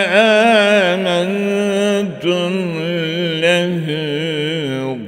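A man reciting the Qur'an in Arabic in melodic tajwid chant, holding long notes that waver through ornamented turns, with one short break for breath about two seconds in.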